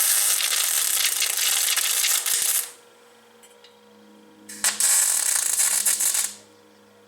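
Arc welding in two bursts: a harsh, crackling sizzle strikes up at once, runs for about two and a half seconds, stops, and strikes again for about two seconds after a short pause, with a faint hum between the welds.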